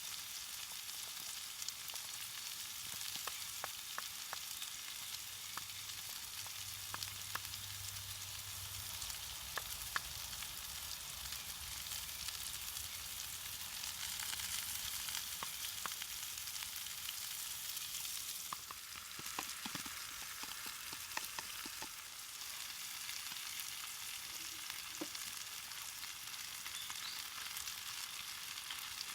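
Food frying in a pan: a steady sizzling hiss with scattered crackles and pops, a little louder for a few seconds about halfway through.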